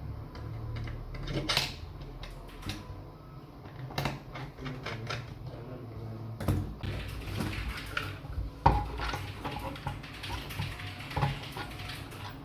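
Plastic key clicks and taps from an AlphaSmart Neo2 keyboard in a 3D-printed desktop enclosure. The clicks come one at a time at first, then in quicker runs from about six and a half seconds in.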